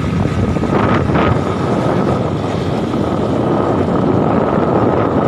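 Honda motorcycle's engine running while riding along a road, with wind rushing over the microphone.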